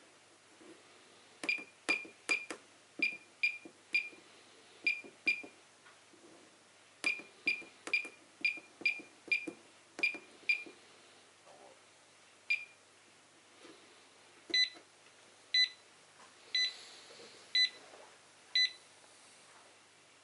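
Homemade airsoft prop bomb's keypad and buzzer: a short high beep with a click at each keypress, in two runs of eight quick presses as a new password is entered and repeated, then one more. About fourteen seconds in the game timer starts and the buzzer gives a different beep once a second, five times.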